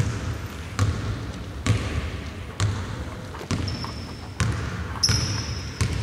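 Basketball being dribbled on the court, about one bounce a second, steady and even. Short high-pitched squeaks come in during the second half.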